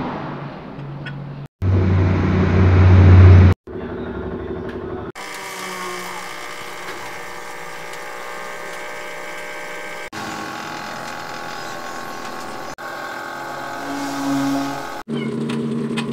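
Steady mechanical hum from running appliances, switching abruptly to a different hum at several cuts. The loudest, deepest hum comes early, from about one and a half to three and a half seconds in.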